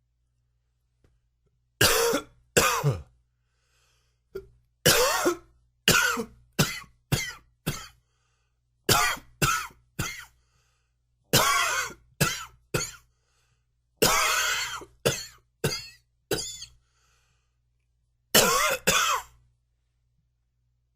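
A man coughing in a fit: repeated coughs in about six clusters of two to five, with short pauses between, starting about two seconds in.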